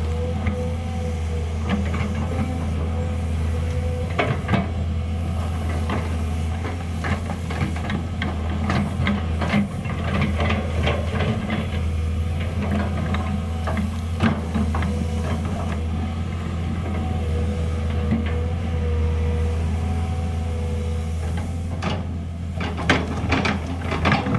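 Volvo EC210B crawler excavator's diesel engine running steadily under load as the boom and bucket work, with scattered clanks and scrapes from the steel bucket against rock and dirt.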